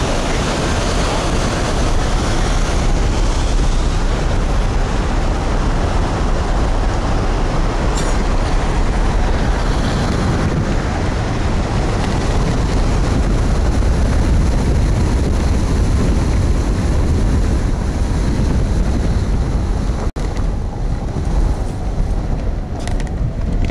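Loud wind noise buffeting the microphone of a camera mounted on a tandem hang glider's wing in gliding flight: a steady, deep rush. It breaks off for an instant about twenty seconds in and comes back a little quieter.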